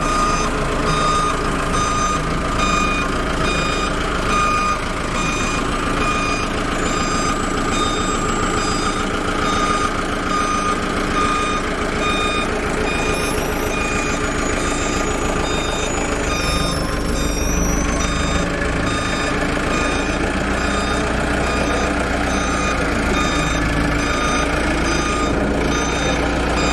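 Truck reversing alarm beeping steadily about once a second, over the truck's engine running. A high whine glides up and down partway through.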